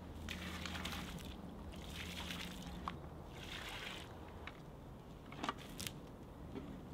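Water poured from a plastic bucket onto loose soil, splashing and trickling in surges for about four seconds. Near the end there are a couple of short, sharp clicks.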